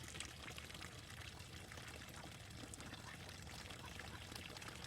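Faint steady running or pouring water, dotted with small ticks and splashes.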